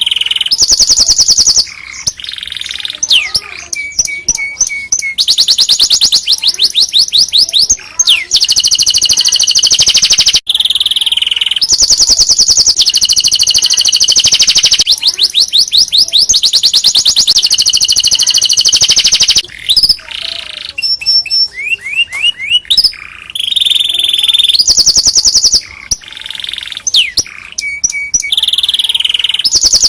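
Domestic canary singing a long, loud song of fast trills and rolling repeated notes, with only short breaks between phrases.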